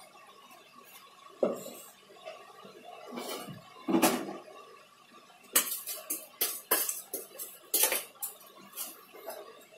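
A spoon knocking and scraping against a stainless steel mixer-grinder jar as the ground biscuit-and-chocolate mixture is scooped out. Two knocks in the first half, then a quick run of sharp knocks from about halfway.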